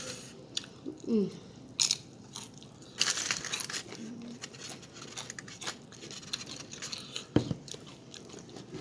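Close-miked chewing and biting of a burrito: wet mouth clicks and smacks with a few crunchy, crackly stretches, and a short hummed "mm" about a second in.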